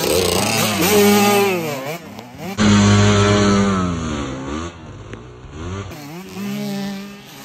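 Dirt bike engines revving hard as several bikes pass close by one after another, the engine pitch rising and falling as the riders work the throttle and gears. The loudest pass comes just before the middle.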